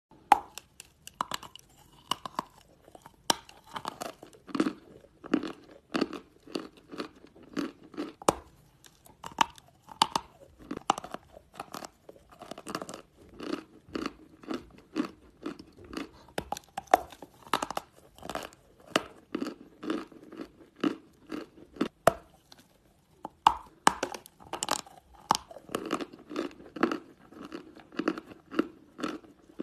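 Person biting and chewing a lump of white Turkestan chalk: dry, sharp crunches, many in quick succession, over a steady chewing rhythm of roughly one to two chews a second.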